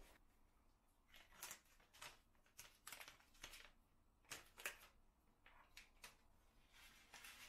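Faint, short rustles and crinkles of a paper spice packet being handled and opened by hand, in a string of brief bursts about once a second.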